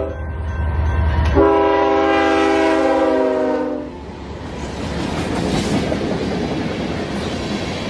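Freight train passing close by, its diesel locomotive's air horn sounding a chord of several notes: a blast that ends just after the start, then a longer blast of about two and a half seconds from about a second and a half in. Under the first part is a deep engine rumble. From about four seconds in, the horn has stopped and the steady rumble and clatter of covered hopper cars rolling past takes over.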